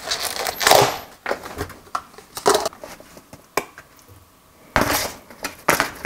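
A metal spoon scraping and clicking against plastic takeout containers and a mixing bowl as rice and seasoned cockles are scooped in. It comes as a series of short scrapes and clicks, the loudest about a second in and another near the end.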